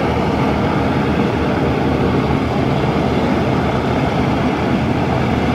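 P-38 Lightning's twin Allison V-12 piston engines running steadily at idle after start-up, a loud, even drone.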